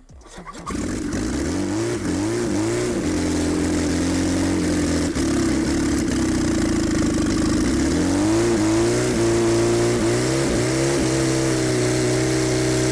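Four-cylinder engine of a classic Lada, running out of the car with its crankshaft counterweights cut off and flywheel removed, so it is badly out of balance. It runs from about a second in. The revs rise and fall briefly, hold steady for a few seconds, then surge up and down again in the second half.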